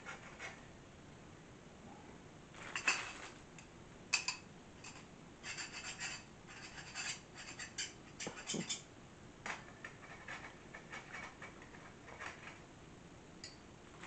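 Light metallic clinks, taps and scrapes of chrome-plated steel cart parts being handled during assembly: posts gripped and shifted, and a metal shelf support strip picked up and set down. The knocks come in scattered clusters, busiest from a few seconds in until past the middle.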